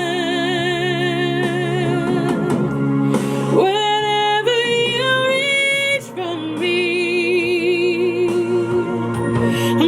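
A woman singing in a trained, classical style, holding long notes with wide vibrato over a sustained backing accompaniment, with short pauses between phrases.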